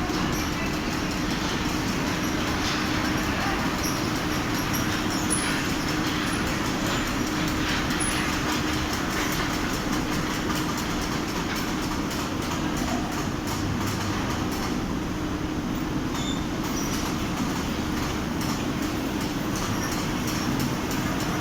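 Large fabric spreading machine running, a steady mechanical rumble and hiss with a constant hum and faint clicking.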